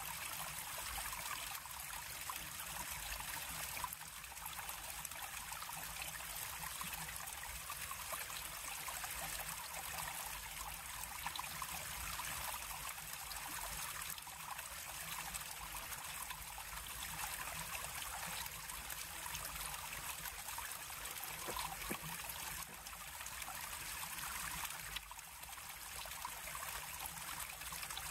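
River water flowing, a steady even rush that goes on without a break.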